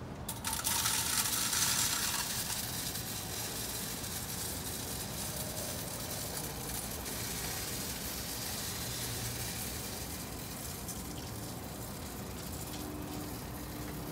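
Bird seed pouring from a bag into a hopper bird feeder: a rushing patter of seed, loudest in the first couple of seconds, then a steadier trickle.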